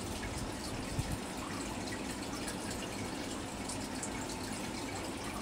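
Steady trickle and splash of water from a running aquarium filter, with a soft knock about a second in.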